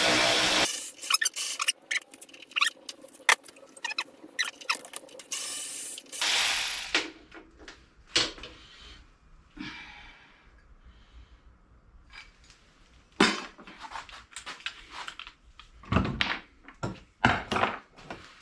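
A power drill spins a fastener on the mower and stops just under a second in. Sharp clicks and metal knocks follow as tools and parts are handled, a second short run of the drill comes about six seconds in, and a few separate knocks fall later.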